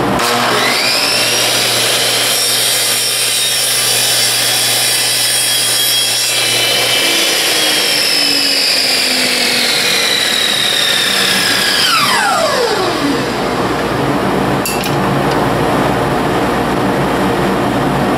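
DeWalt miter saw motor whining up to speed, running while the blade is brought slowly through wooden picture-frame moulding for a 45-degree miter cut, its whine slowly falling in pitch during the cut. It is switched off about 12 seconds in and winds down, followed by a single click, all over a steady rushing noise.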